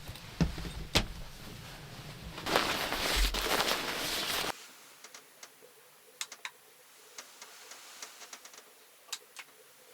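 A few sharp clicks and knocks, then about two seconds of loud rustling that stops abruptly. Afterwards it is quiet, with faint scattered ticks.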